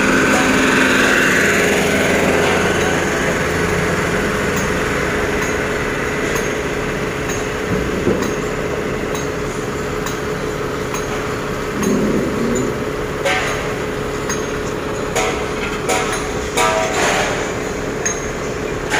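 Diesel engines idling steadily, with a forklift's engine passing and fading within the first couple of seconds. Later, a series of sharp metal clanks and knocks.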